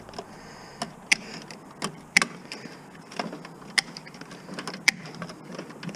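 Irregular sharp clicks and knocks, one or two a second, as wiring and parts are worked loose from a scrap electric stove.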